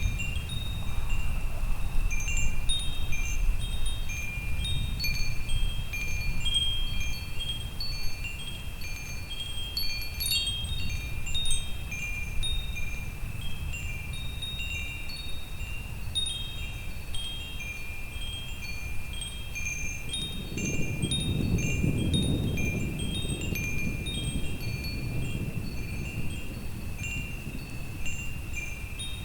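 Wind chimes ringing continuously, many high tones struck and overlapping. A low rumble of distant thunder swells and fades about two-thirds of the way through.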